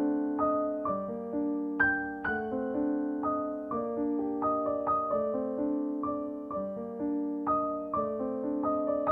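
Background music: a gentle piano melody, single notes and chords struck and left to fade, about two a second.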